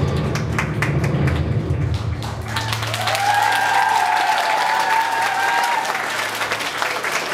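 Audience applauding as the dance music ends, about two and a half seconds in. A high held note sounds over the clapping for a few seconds.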